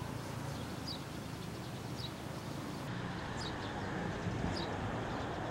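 Outdoor street ambience: a steady low rumble of distant traffic, with a bird giving a short high chirp about once a second.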